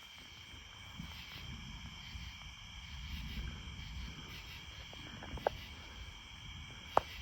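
Insects chirping in a steady, high-pitched chorus over a low rumble, with two brief sharp clicks about five and a half and seven seconds in.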